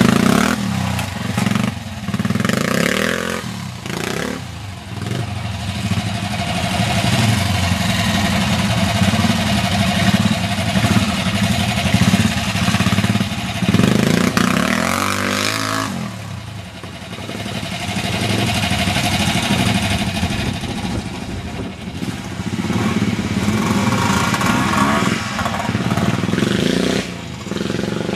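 Vintage trial motorcycle engine running at low revs, the throttle opened and closed again and again so the revs rise and fall. The engine note drops briefly a little past halfway, then picks up again.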